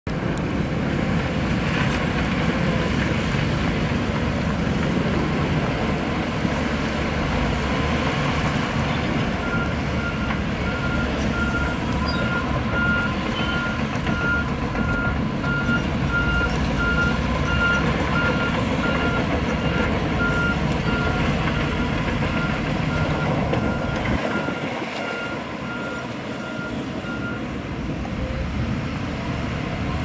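Heavy diesel engines of a Shantui bulldozer and a dump truck running. From about ten seconds in until near the end, a vehicle's reversing alarm beeps steadily, about one and a half beeps a second.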